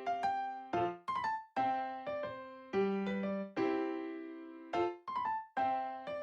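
Background music: a gentle piano or electric-piano piece, chords struck about once a second and left to ring.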